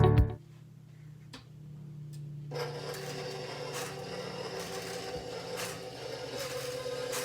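KitchenAid stand mixer starting about two and a half seconds in and running steadily with an even motor whine.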